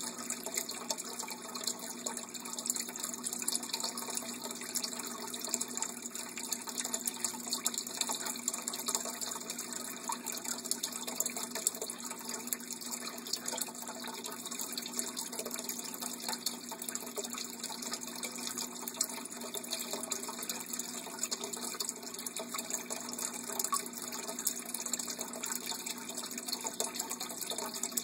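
Aquarium filter's water return pouring steadily into the tank, a constant splashing flow.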